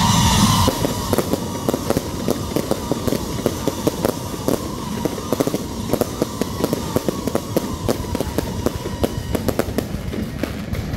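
Electrically fired aerial fireworks crackling and popping in dense, irregular strings of sharp cracks. Music cuts off just under a second in.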